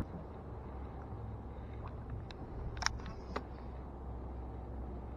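A few light metallic clicks and one sharper tink from needle-nose pliers and a baitcasting reel being handled, over a steady low hum.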